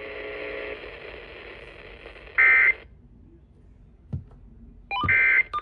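Emergency Alert System end-of-message data tones: two short, buzzy digital bursts about two and a half seconds apart, over radio hiss that cuts off after the first burst. They mark the end of the warning broadcast.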